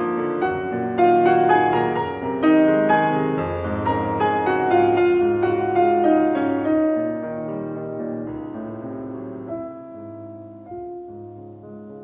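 Solo piano music with a run of struck, ringing notes, growing quieter in the second half.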